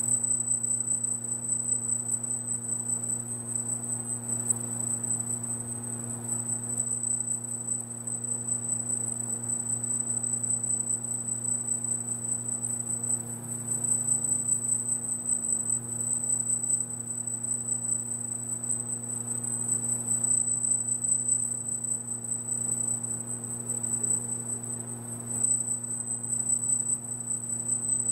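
Laser marking machine engraving lettering into a polished metal plate: a steady high-pitched whine with a low electrical hum underneath.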